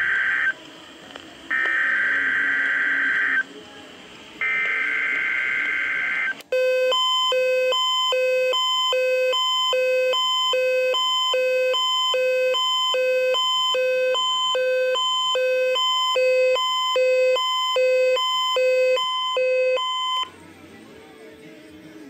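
NOAA weather radio alert: harsh warbling SAME digital header bursts (the encoded alert data). One burst ends about half a second in, then two more of about two seconds each follow with a second's gap between. About six seconds in, the First Alert emergency alert radio's own alarm starts, a loud electronic beeping that alternates between a low and a higher tone about one and a half times a second, signalling a received tornado watch. It stops a couple of seconds before the end.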